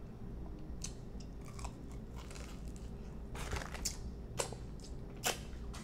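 Close-up chewing of crispy fried lemon pepper chicken wings, with a few short crunches scattered through.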